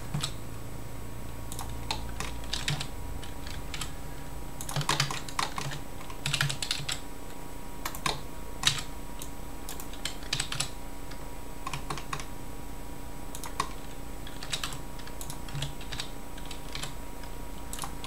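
Computer keyboard keys being tapped irregularly, single clicks and short quick clusters, over a faint steady hum.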